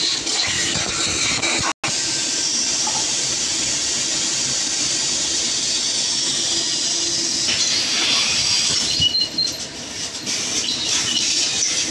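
Steady hissing background noise of a workshop, with no clear single source; it drops out for an instant just under two seconds in, at a cut, then carries on unchanged.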